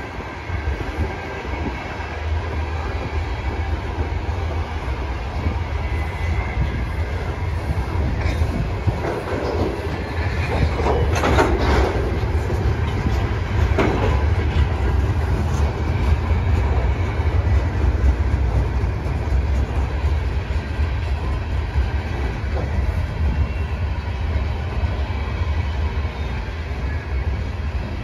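Freight train cars (tank cars and centerbeam lumber flatcars) rolling past at steady speed: a continuous low rumble with wheel clickety-clack over the rails. A short, harsher burst of noise rises midway through.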